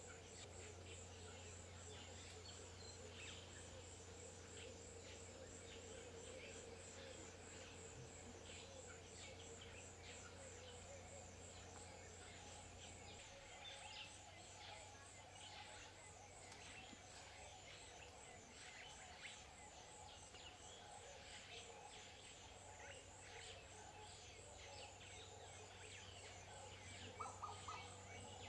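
Faint natural ambience: scattered chirps of small birds, over a steady, rapidly pulsing high insect trill. There is one brief louder call near the end.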